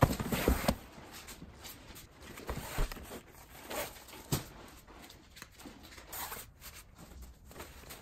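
Nylon stuff sacks rustling and soft knocks as camping gear is pushed into a car boot. There is a loud rush of rustling at the start, then a few short knocks and scattered rustles.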